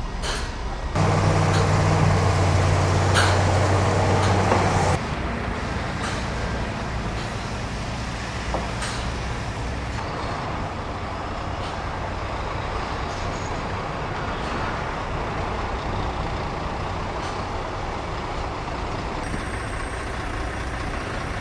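Heavy truck engine running as a tractor unit hauls a large tank on a low trailer: a deep steady hum, louder for about four seconds near the start and then dropping off abruptly to a quieter steady drone.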